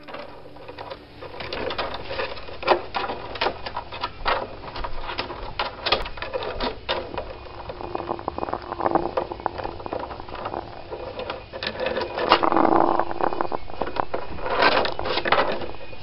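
African grey parrot close to the microphone: scattered sharp clicks and taps from its beak and claws on the wooden ledge, with a few short rasping growls.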